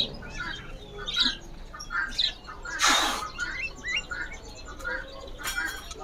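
Caged budgerigars chirping and squawking, many short scattered calls, with one loud harsh squawk-like burst about three seconds in.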